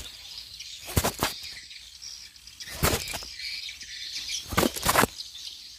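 Three short swishing rustles, about two seconds apart, from the angler's arm and fishing rod moving close to the camera, over a steady high hiss.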